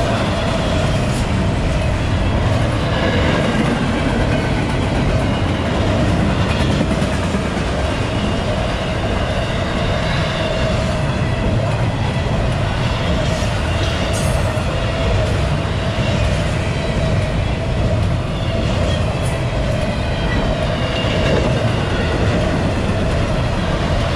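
Double-stack intermodal freight cars rolling past at speed close by: a steady, loud rumble of steel wheels on rail that holds even throughout.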